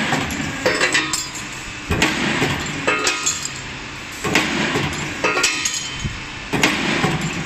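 Hex key stamping and bending machine working, with sharp metal clanks roughly once a second, each followed by ringing clinks of steel.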